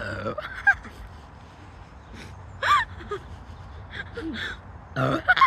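Girls laughing in breathless gasps and short high-pitched squeals, with louder outbursts about two and a half seconds in and near the end.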